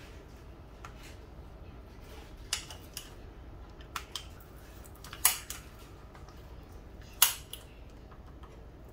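Plastic jerky gun being pumped to stuff ground goose meat into snack-stick casings. Its trigger and plunger give about half a dozen sharp plastic clicks, spaced one to two seconds apart, with two louder clacks in the second half.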